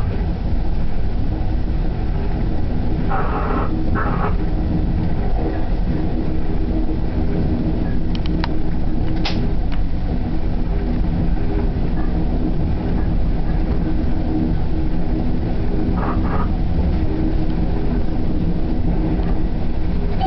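Long Island Rail Road train running along the track, heard from inside its leading cab car: a steady rumble of wheels on rail and running gear, with a few brief rattles about three seconds in and again near the end.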